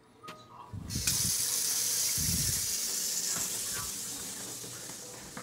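Water running full from an old Danze pull-down kitchen faucet. It is turned on about a second in, then runs as a steady hiss that eases a little toward the end, with a couple of low bumps.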